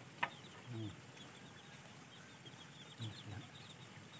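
Quiet rural background: chickens clucking, two low clucks about a second apart from the start and near three seconds in, with small birds chirping faintly. There is one sharp click about a quarter of a second in.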